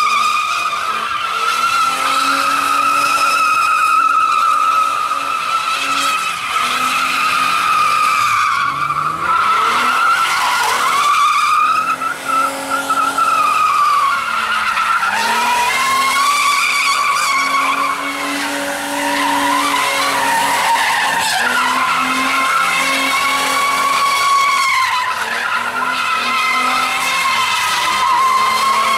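Holden VN Commodore's 3.8-litre Buick V6 held at high revs in a burnout, the rear tyres spinning and squealing continuously. The revs and the squeal dip and climb back several times.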